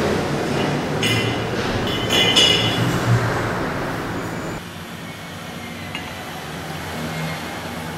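Ceramic mugs and a teapot clinking as they are set down on a table, two short bursts of clinks in the first half, over a steady hiss that drops away at about halfway.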